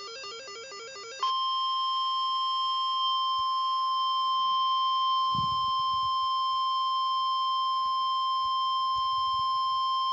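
A short run of stepping electronic tones. About a second in, the 1050 Hz weather radio warning alarm tone starts: one steady, piercing tone held for about nine seconds, then it cuts off sharply. The tone signals that a new weather warning is about to be read.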